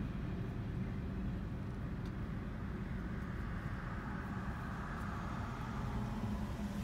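Steady car engine and road noise heard from inside the cabin as the car moves off and turns.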